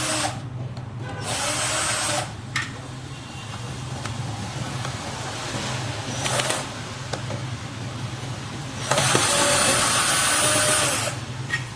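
Cordless electric screwdriver whirring in bursts as it backs out screws: about a second of running a second in, a brief spurt past the middle, and a longer two-second run near the end.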